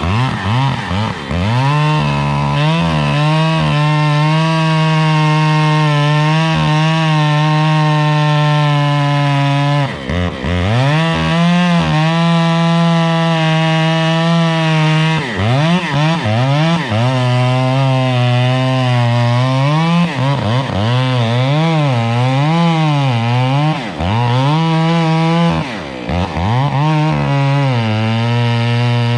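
Gas chainsaw cutting wood: the engine is held at high revs for several seconds, drops briefly about a third of the way in, then rises and falls repeatedly as it bogs and picks up in the cut, with a few more short dips.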